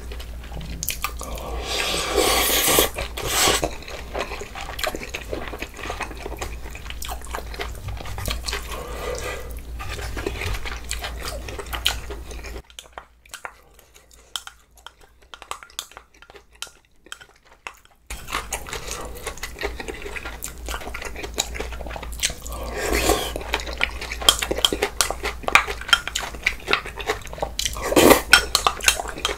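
Eating sounds: spoon and chopsticks clicking and clinking against the hot pot and bowl, with wet slurping of brothy bulgogi hot pot and glass noodles and some chewing. It goes quiet for a few seconds in the middle, with only a few scattered clicks.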